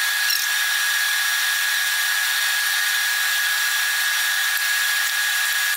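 Floured chunks of beaver meat sizzling in smoking-hot oil in a wide aluminium pan: a loud, even hiss, with a thin steady high whine running through it.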